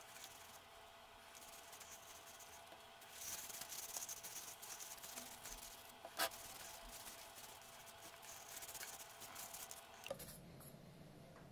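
Cloth rubbing metal polish around the inside of a brass bell, a faint scrubbing hiss that grows louder a few seconds in. A single sharp tap comes about six seconds in, and the rubbing stops near the end.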